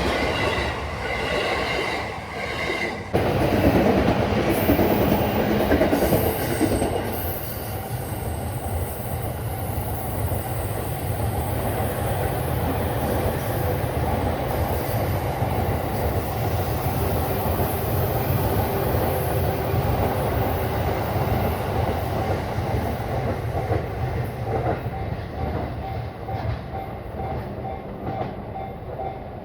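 Electric commuter train passing over a level crossing, wheels clattering on the rail joints. It gets suddenly louder about three seconds in and slowly fades near the end. A level-crossing warning bell rings regularly at the start and again as the train fades.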